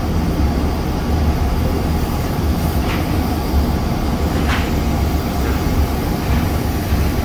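Steady loud industrial roar with a heavy low rumble, with two brief faint higher sounds about three and four and a half seconds in.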